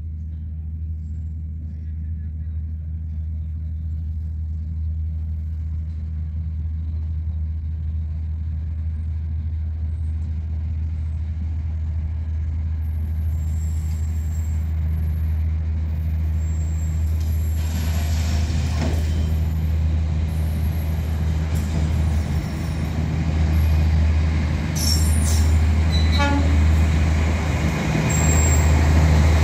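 Diesel-electric locomotive idling with a steady low hum, while a Materfer diesel railcar approaches and passes close by, the sound growing steadily louder toward the end.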